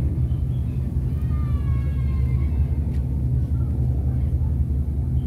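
Steady low mechanical rumble of outdoor city background noise, with a faint voice briefly about a second in.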